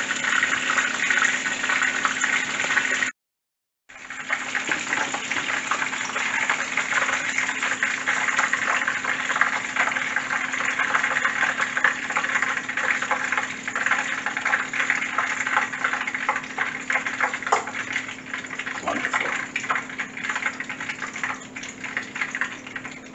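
Battered porgy sizzling and crackling as it fries in hot oil in a skillet, over a steady low hum. The sound cuts out for a moment about three seconds in, and the sizzle is a little weaker toward the end.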